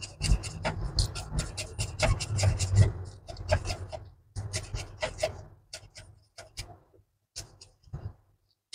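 Kitchen knife chopping coriander and curry leaves finely on a wooden cutting board: quick knife strikes on the board, about four a second, growing sparser in the second half.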